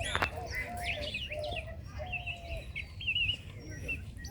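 Several birds chirping and warbling in quick, overlapping calls, with a sharp click a fraction of a second in and a low rumble underneath.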